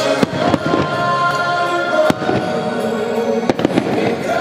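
Aerial fireworks shells bursting with sharp bangs, about five in a few seconds, over sustained music playing throughout.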